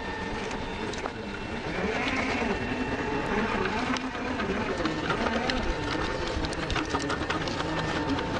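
Traxxas TRX4 RC crawler's electric motor and geared drivetrain whining, the pitch wavering up and down with the throttle as it crawls over rocks, a little louder from about two seconds in. Scattered clicks of tyres and stones throughout.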